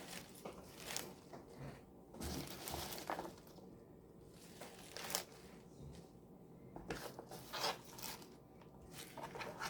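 Collard green leaves rustling and crinkling as they are handled and put into a cooking pot, in short irregular bursts.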